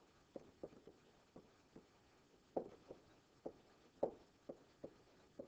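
Faint, irregular taps of a stylus writing words by hand on a digital pen surface, about two taps a second.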